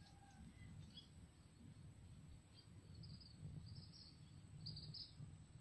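Near silence: faint outdoor ambience with a low rumble and a few short, faint high chirps about three, four and five seconds in.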